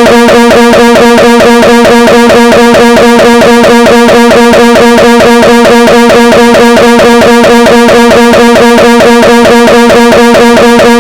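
A synthesized text-to-speech voice holding one long wail on a steady pitch at full volume, with a fast buzzy flutter: a cartoon character's fake crying.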